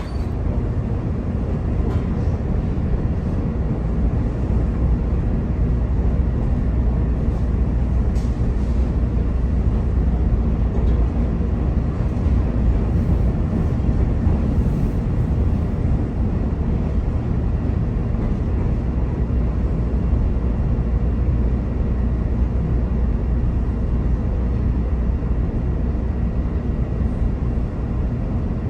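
Chicago 'L' rapid-transit train running between stations, heard from aboard: a steady low rumble of wheels on track and the car's motors, with a faint whine held above it.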